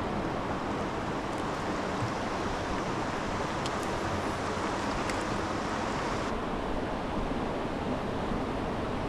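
Steady rushing noise with a few faint ticks in the middle; the higher part of the hiss drops away about six seconds in.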